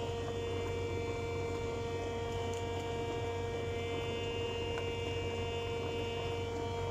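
A steady electrical hum made of several fixed, unchanging tones, with a faint noise bed beneath.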